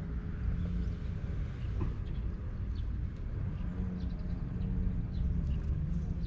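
Tabby-and-white cat purring close to the microphone while its head is stroked: a steady low rumble, the sign of a content cat.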